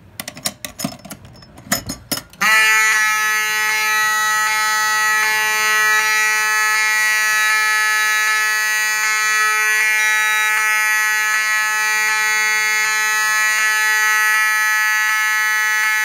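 A few clicks and knocks as a fire alarm pull station is pulled, then, about two and a half seconds in, a Wheelock 7002T-12 electromechanical fire alarm horn comes on. It sounds continuously at its rated 12 volts: one loud, steady, buzzy tone held without a break.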